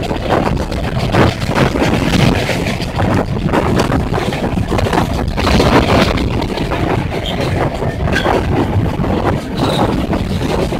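Wind rushing over the microphone, filmed from an open window or door of a moving passenger train, over the steady running noise of the train at speed. The wind comes in irregular gusts.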